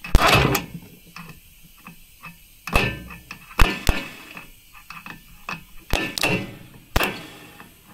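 A screwdriver is shorted across the starter terminals of a Trabant two-cylinder two-stroke engine, sparking. It makes a string of sharp electrical snaps and clicks, about seven in all, with the first one a little longer. There is no steady cranking sound: the starter does not turn the engine over, which the mechanic takes for a seized engine.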